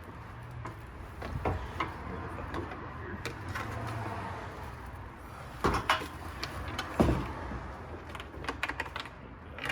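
Hard plastic headlight parts being handled and fitted: scattered clicks and knocks, with two louder knocks about six and seven seconds in.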